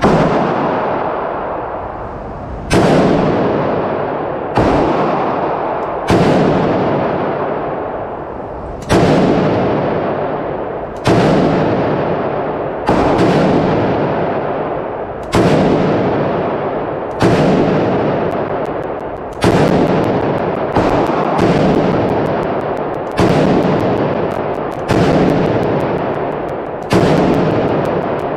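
A Romanian SAM7R 7.62x39mm AK-pattern rifle fired in slow, deliberate semi-automatic shots, about fourteen in all, roughly one every two seconds. Each report is followed by a long echoing decay in an enclosed indoor range.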